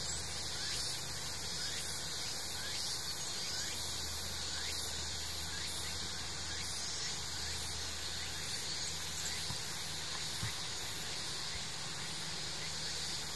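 Cicadas in the summer woods keeping up a steady high-pitched drone, with faint short rising notes repeating about twice a second beneath it.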